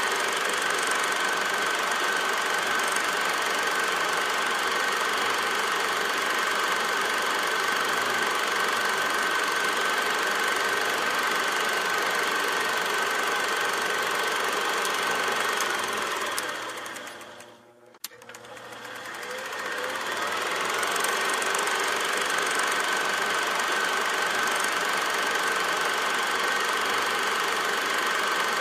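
Steady mechanical running noise with a hiss and a constant high whine. About 17 seconds in it fades almost to nothing, gives a single click, and then swells back to the same level.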